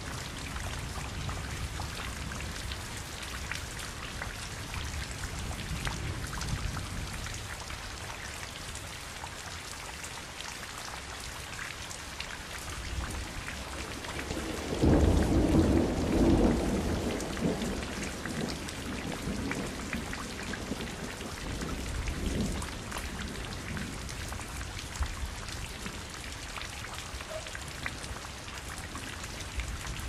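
Steady rain falling, with fine ticks of drops hitting a surface. About halfway through, a low roll of thunder swells up louder than the rain and dies away over two or three seconds.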